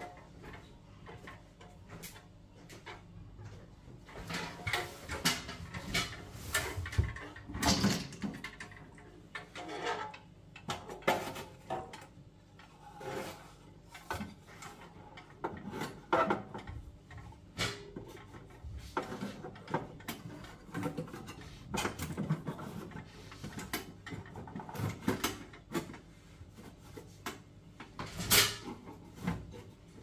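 Irregular clicks, knocks and scrapes of metal parts being handled as a fan is fitted back into a gas boiler's casing.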